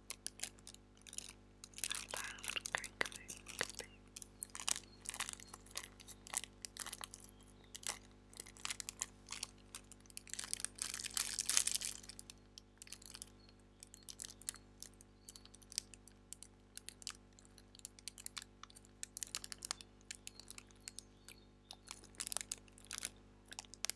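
Clear plastic crinkled and rubbed right against a clip-on lavalier microphone: dense, irregular crackling and clicks, heaviest about two to four seconds in and again around ten to twelve seconds.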